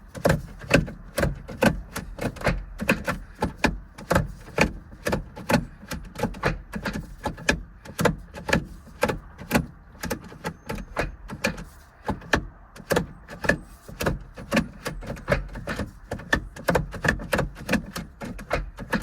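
Rapid, uneven series of sharp mechanical clicks and clunks, about two to three a second, from hands working the car's shifter and shift-cable linkage.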